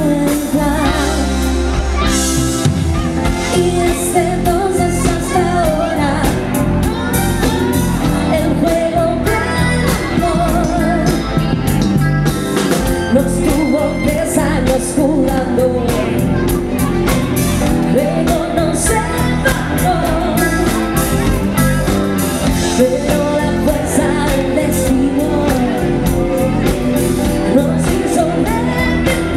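Live pop-rock band playing through a PA: a woman sings lead over two electric guitars, keyboard and a drum kit keeping a steady beat.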